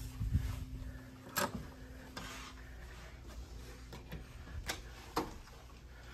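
Hotel room door being pushed open and the room entered: a few sharp clicks and knocks over a low steady hum.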